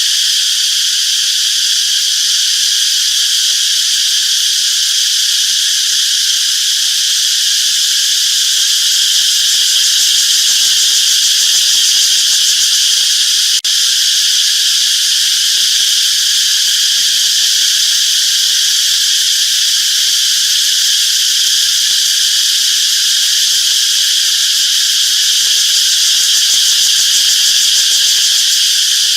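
Cicadas singing: a loud, unbroken, high buzz, with one brief dropout about halfway through.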